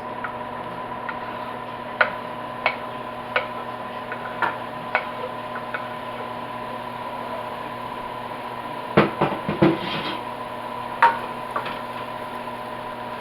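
A utensil clicking and knocking against a frying pan while onions and bell peppers are stirred, a handful of separate taps with a quick run of them about nine seconds in, over a steady hum.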